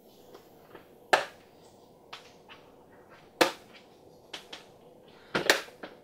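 Hard plastic clicks and knocks from a plastic collector's wheel case being handled, with three louder clicks about one, three and a half and five and a half seconds in and lighter ticks between.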